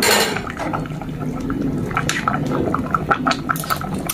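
Lechon paksiw braising liquid bubbling at a simmer in an uncovered pot, with many small irregular pops. A brief burst of noise comes at the very start.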